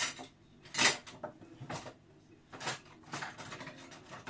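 Kitchen pots and utensils knocking and clinking: four sharp knocks about a second apart, with lighter clicks between them.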